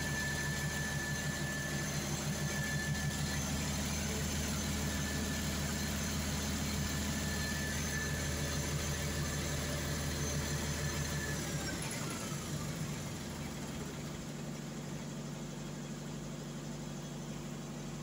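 Perkins diesel generator engine running steadily at about 1,500 rpm, then, about two-thirds of the way through, running down with a falling whine and stopping, leaving a fainter steady hum. This is an unexpected shutdown: the shorted magnetic pickup speed sensor cut the speed signal to the genset controller.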